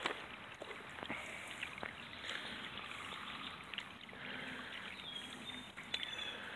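Shallow water running steadily, with a few faint clicks and knocks.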